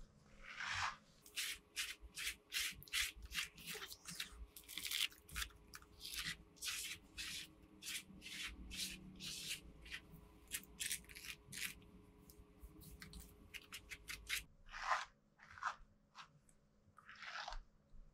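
Wooden-backed brush stroked through a Shih Tzu's long coat, a quick brushing rub about twice a second that thins to a few scattered strokes near the end.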